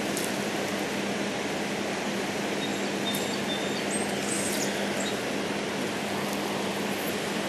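Steady rushing of a shallow river running over rocks and a weir, heard around a wading angler's legs, with a few faint high chirps near the middle.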